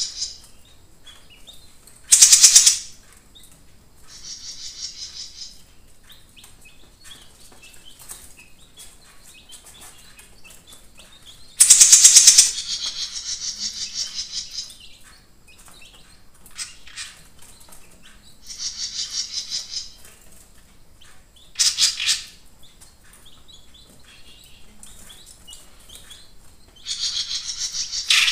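Caged jenggot mini songbird singing in bouts: high, fast chattering phrases every few seconds with quiet gaps between, three of them short and much louder, about two seconds in, about twelve seconds in and about twenty-two seconds in. This is the vigorous, frequent singing that keepers call gacor.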